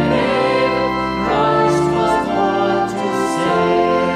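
Choir singing a slow hymn with instrumental accompaniment, notes held about a second each before the chord changes.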